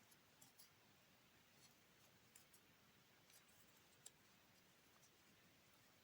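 Near silence with faint, scattered small clicks, about ten in six seconds, from a crochet hook working single crochet stitches in yarn.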